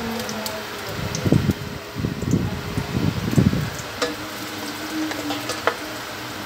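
Stovetop cooking: a steady hiss under low muffled bumps in the first half, then a faint steady hum and a few sharp knocks of a wooden spoon against a stainless-steel pot as stirring begins, about four seconds in.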